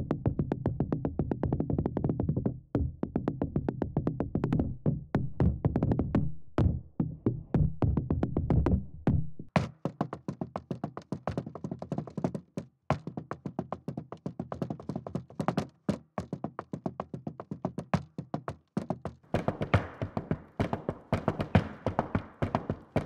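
Tap shoes striking the floor in quick rhythmic tap-dance steps, heard through three microphones in turn. First a LOM Geofon geophone picks up the floor vibration with heavy low thuds. About ten seconds in an AKG C411 contact pickup gives thinner, sharper clicks, and near the end a Sennheiser MKH 50 condenser gives brighter clicks over a faint steady high tone.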